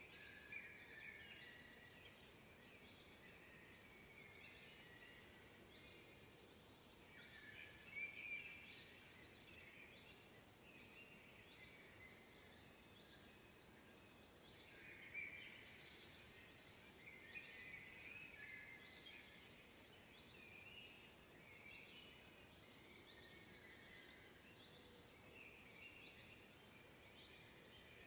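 Faint chorus of several songbirds in a spring woodland: overlapping warbling songs and calls throughout, with a thin, high chirp repeated every second or so.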